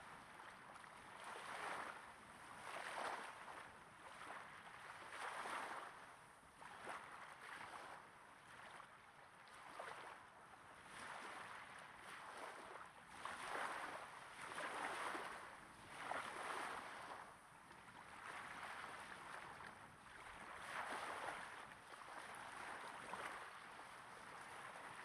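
Small waves gently breaking and washing onto a sandy beach at close range: a soft hiss of water that swells and fades every second or two.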